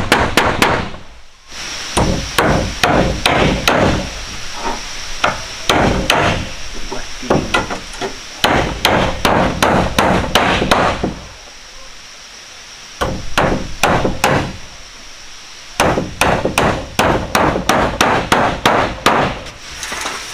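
Hammering on wood: runs of quick, even blows, a few a second, broken by short pauses.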